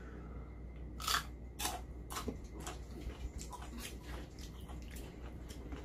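A spoon clicking and scraping in a soup bowl as food is stirred and scooped, about a dozen short, sharp clicks at irregular intervals, with soft eating sounds.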